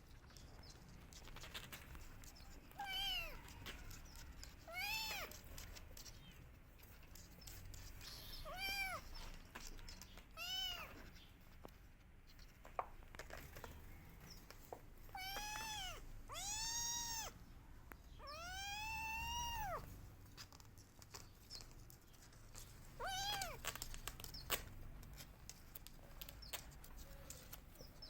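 A kitten meowing repeatedly: about eight high-pitched calls a few seconds apart, each rising and then falling in pitch, the longest drawn out for about a second and a half. It is crying for its mother.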